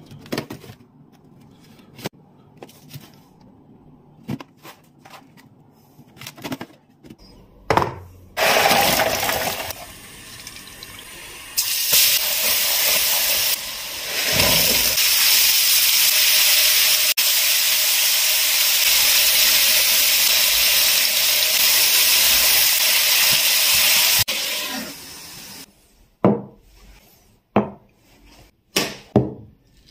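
Plastic food containers clicking and knocking as they are handled, then liquid sizzling and bubbling hard in a hot frying pan for most of the stretch, then a few light knocks near the end.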